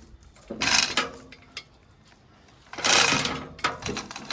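Heavy metal PTO housing grating and clattering against the tractor's casing as it is lowered and worked into place over its gears, in two rattling bursts with a few sharp clicks after.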